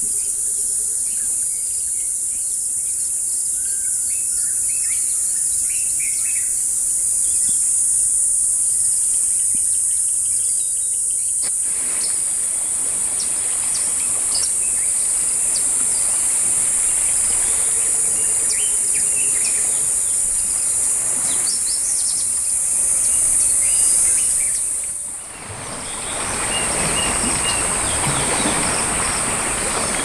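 Forest ambience: a steady high-pitched insect drone with birds chirping now and then. About a third of the way in, the hiss of a rushing stream joins; it dips briefly near the end and comes back louder.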